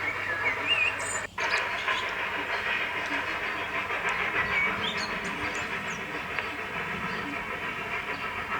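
Miniature steam train on a 7¼-inch gauge railway running, with a steady hiss and the clicking of its wheels on the rails. There is a brief dropout about a second and a half in.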